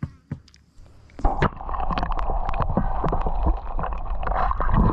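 Water sloshing and gurgling with scattered knocks, starting about a second in, as a fish is released over the side of a small inflatable dinghy.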